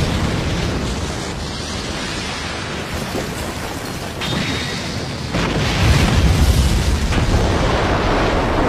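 Cartoon sound effects of a huge fire attack: a continuous explosive blast of rushing flame over a low rumble. It swells louder and heavier about five seconds in.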